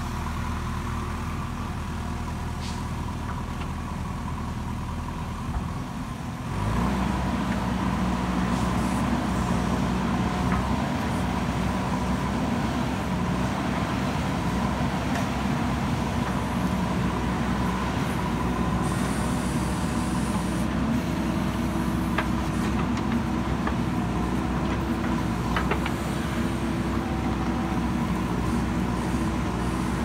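JCB 3DX backhoe loader's diesel engine running steadily while the backhoe digs. About six and a half seconds in it gets suddenly louder and higher, then holds there, with a few faint clicks over it.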